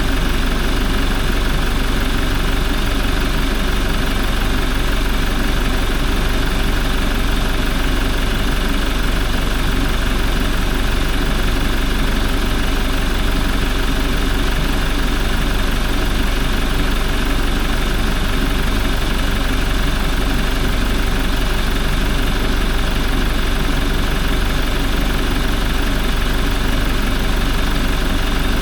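Toyota 1GD-FTV 2.8-litre four-cylinder turbodiesel idling steadily.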